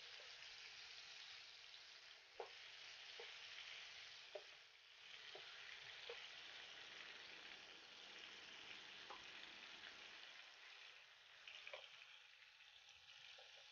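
Pangas fish pieces frying in oil in a nonstick frying pan, a faint steady sizzle, with a few light taps of a wooden spatula as the pieces are turned over.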